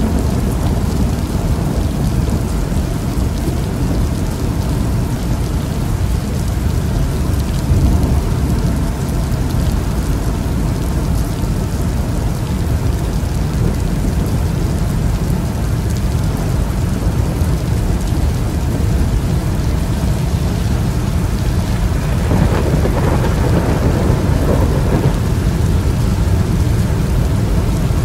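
Rain striking a moving car's windshield and roof, heard from inside the cabin, over a steady deep rumble. The rain sound grows briefly harsher a little over twenty seconds in.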